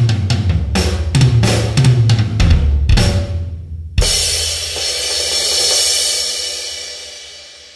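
Drum kit playing a busy pattern of kick, snare and cymbal hits, which stops briefly and ends on one big crash hit about four seconds in that rings on and slowly fades away.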